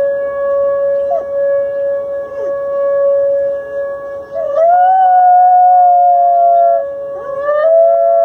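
A dog howling over a steady, unbroken held tone: short gliding cries about a second and two seconds in, then two long, level howls that rise into pitch about four and a half and seven and a half seconds in.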